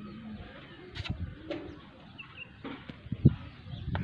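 Outdoor yard sounds: a few dull low thumps and knocks, the loudest about three seconds in, with faint bird calls.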